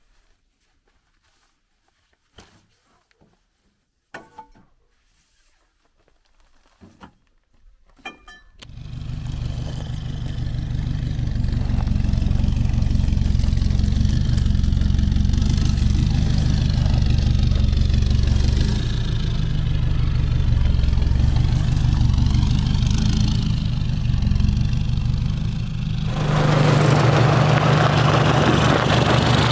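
A few light knocks and clicks, then about eight seconds in a Toyota Hilux pickup's engine comes in and runs steadily as the truck crawls along a rough off-road track through scrub. Near the end a rough crunching of tyres on gravel grows louder over the engine.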